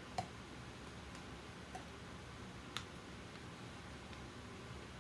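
Faint clicks of a metal ice cream scoop knocking against a frozen glass and the ice cream tub while scoops of vanilla ice cream go into the glass: three light ticks over steady room tone, the sharpest near the middle.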